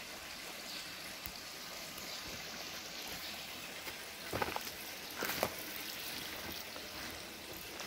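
Steady trickle of water running into an outdoor fish pond, with two short knocks about halfway through.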